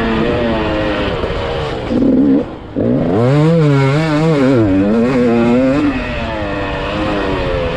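Motocross bike engine revving hard under racing throttle, its pitch rising and falling through the gears. It dips briefly about two and a half seconds in as the throttle is shut, then climbs in a strong rev and falls back.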